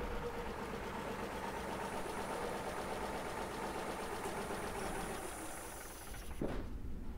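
Truck engine idling steadily with a rumbling low end. A sharp thump comes about six and a half seconds in, after which the higher hiss of the sound drops away.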